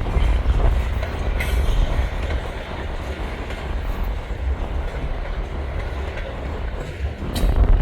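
Freight train of grain cars rolling past, wheels clacking steadily over the rails, with two brief sharper sounds, about a second and a half in and near the end. Strong wind buffets the microphone, adding a deep rumble.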